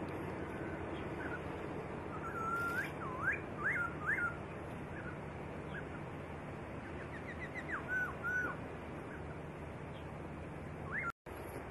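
A songbird singing clear whistled notes with quick upward and downward slurs, in two short bursts: one about two and a half seconds in, another around eight seconds. Between the bursts there is a steady faint background hiss, and the sound cuts out for an instant near the end.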